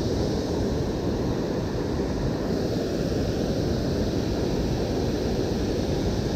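Steady rush of flowing river water, an even, unchanging noise.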